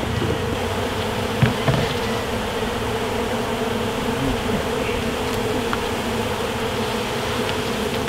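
Honey bees buzzing from an opened hive in a steady, dense hum, with two short knocks about a second and a half in.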